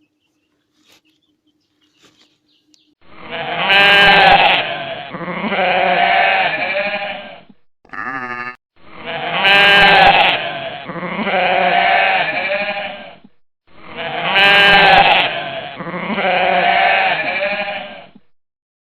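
Sheep bleating loudly, the same long two-part bleat heard three times, each lasting about four seconds, with a short higher wavering call between the first two.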